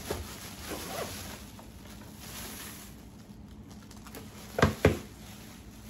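Plastic bag rustling as items are handled, then two sharp clicks about a quarter second apart near the end.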